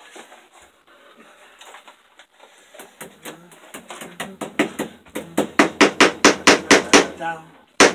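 A hammer tapping cable staples with plastic saddles into wood to secure electrical wire: light taps from about three seconds in, growing louder into a rapid run of about five strikes a second, then after a short pause hard blows near the end.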